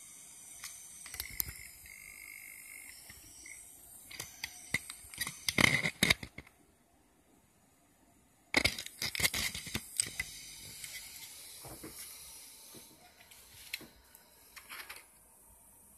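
Car loudspeaker with a blown voice coil crackling and clicking irregularly in clusters, with a gap of near silence in the middle.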